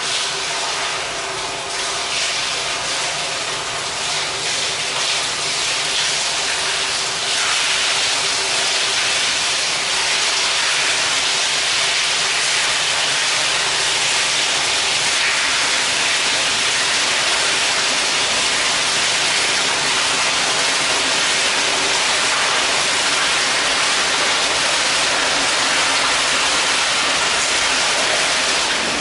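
Stormwater rushing through a concrete storm sewer, with a jet pouring from a side inlet and splashing into the channel, echoing inside the pipe. The rushing grows louder about seven seconds in and then holds steady.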